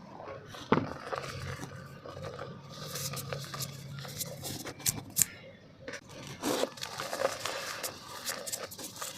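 Dry black mud dirt crumbling and crunching in a clay pot, in irregular crackles and scrapes with a few sharper snaps, the loudest about a second in.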